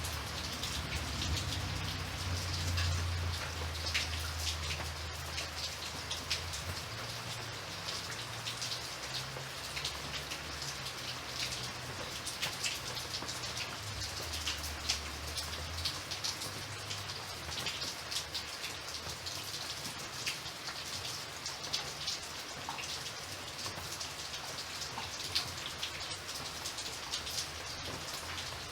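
Steady rain falling, a dense patter of drops hitting a surface. A low rumble comes and goes during the first half.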